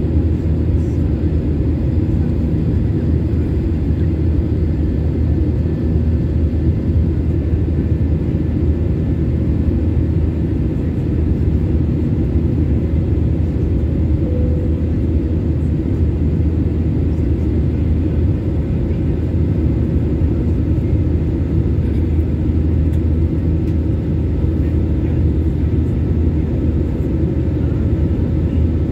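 Steady cabin noise inside an Airbus A320-family jet airliner climbing after takeoff: the wing-mounted turbofan engines and airflow make a constant low rumble, with faint steady whining tones above it.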